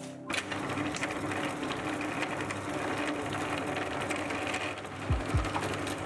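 Benchtop drill running: a centre drill cutting a centre hole into aluminium round stock, heard as a steady motor hum under a dense, chattering cutting noise that starts about a third of a second in. Two short low thumps come about five seconds in.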